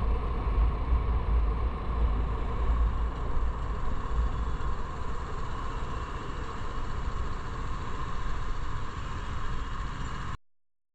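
Motorcycle on the move: engine running steadily under a heavy low wind rumble on the microphone. It cuts off suddenly near the end.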